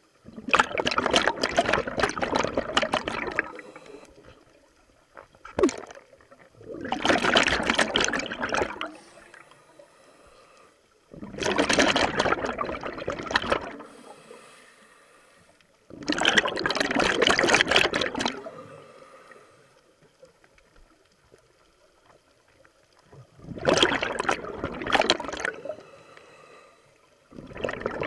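Scuba diver's exhaled breath bubbling out of the regulator underwater, in bursts of two to three seconds about every five seconds, with quiet gaps between breaths.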